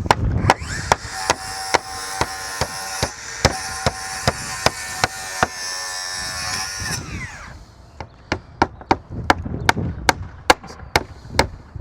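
A power saw spins up, runs for about six seconds cutting out a damaged section of roof wood, then winds down with a falling pitch. A steady run of hammer blows, about three a second, goes on throughout.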